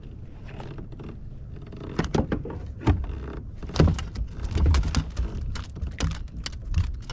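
Irregular knocks and clatter of gear being handled in a kayak, starting about two seconds in, over a low rumble.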